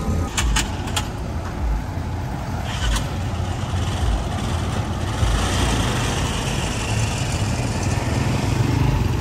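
Busy street traffic: auto-rickshaw and motorcycle engines running and passing under a steady low rumble, with a few sharp clicks in the first second.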